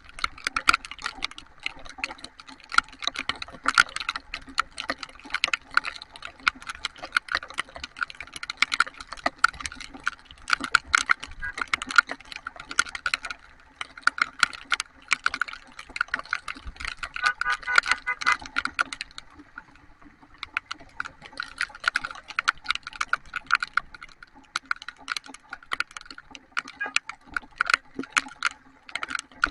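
Heavy rain, with drops striking a hard surface close to the microphone in dense, irregular tapping over a low steady hum. The tapping thins for a few seconds past the middle, then picks up again.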